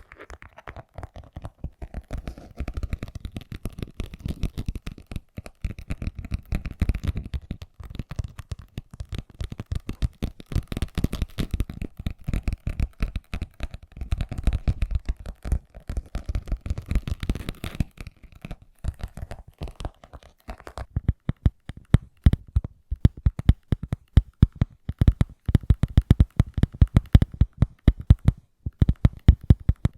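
Fingertips scratching rapidly and continuously over a surface, then, about two-thirds of the way through, quick sharp fingertip taps at several a second.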